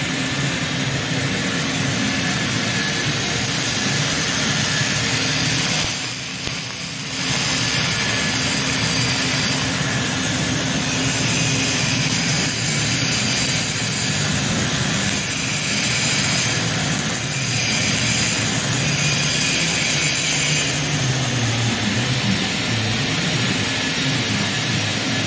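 Electric arc welding a circumferential seam on a pipe turned by a welding positioner: a steady, loud hiss of the arc, which drops out briefly about six seconds in.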